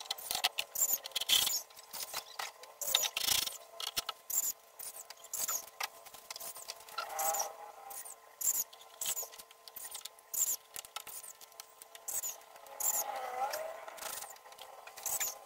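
Scattered clicks and knocks of a cordless drill and the sheet-metal cover of a breaker panel being handled. Short high chirps repeat throughout, and faint cattle lowing comes twice, about 7 and 13 seconds in.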